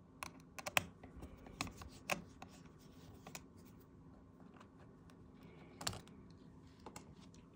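A small screwdriver turning out a laptop screw: irregular light clicks and scrapes of the tip in the screw head and of the tool against the chassis, a quick run of them in the first second and single ones after.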